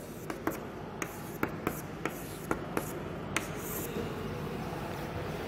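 Chalk writing on a blackboard: faint scratching strokes broken by several sharp taps as the chalk strikes the board, mostly in the first three and a half seconds.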